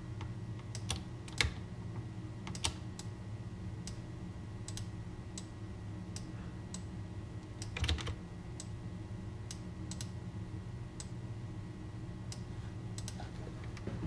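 Scattered single clicks of a computer mouse and keyboard at uneven intervals, roughly one a second, with one louder click a little past halfway, over a steady low hum.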